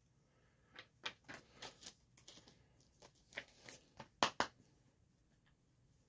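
A disc being taken out of a plastic Blu-ray case: a run of small, faint clicks and rustles, ending in two sharper clicks a little after four seconds in.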